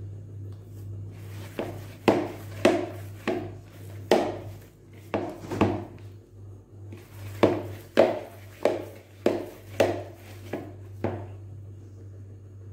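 Sticky yeast dough being kneaded by hand in a plastic bowl: a series of about fifteen sharp, uneven slaps as the hands press and fold the dough, stopping near the end.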